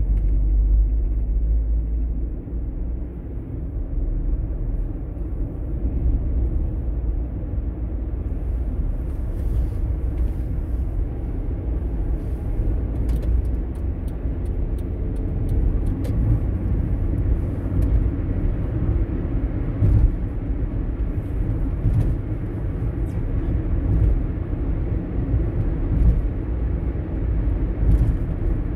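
Car driving along a road: a steady low rumble of tyres and engine, with a few short light knocks along the way.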